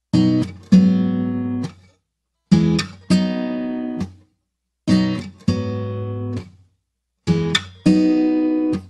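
Background music: an acoustic guitar strums a chord twice and lets it ring out, four times over with short silences between, opening a song.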